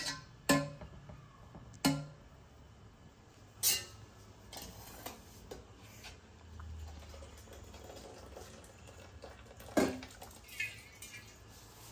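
Serving spoon clinking against a cooking pot as cooked rice is spooned in over a layer of keema curry to build the biryani: a handful of sharp clinks, the loudest about ten seconds in.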